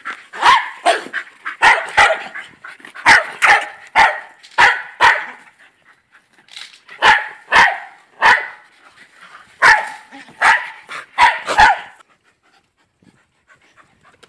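A dog barking over and over, short sharp barks coming in quick bursts of two or three, stopping near the end.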